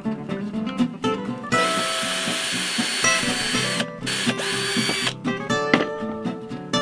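Cordless drill running into plywood in two bursts: a longer one of about two seconds, then a short one. Acoustic guitar music plays throughout.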